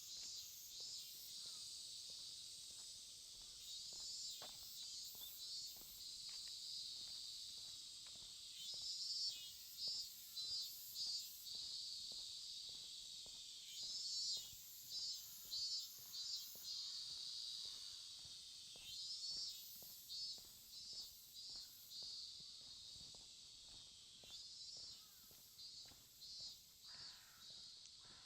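Insects calling in the summer dawn: a steady high chirring, with loud runs of pulsed calls, a few pulses a second, that come back every few seconds. Faint footsteps under it.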